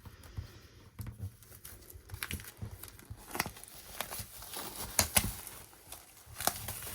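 A photo book album being handled and unwrapped: irregular crinkling and rustling of packaging with scattered sharp taps and clicks, loudest about five seconds in.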